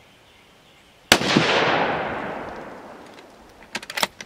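A single shot from a scoped bolt-action .308 Winchester rifle about a second in: a sharp crack, then a long echoing tail that fades over two to three seconds. Near the end there is a quick run of metallic clicks as the bolt is worked to eject the case and chamber the next round.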